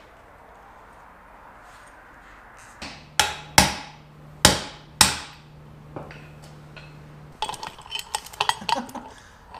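Four hard hammer blows on a steel driveshaft U-joint yoke, in two quick pairs a few seconds in, each ringing briefly. Near the end come lighter metal clinks and clicks of tools being handled.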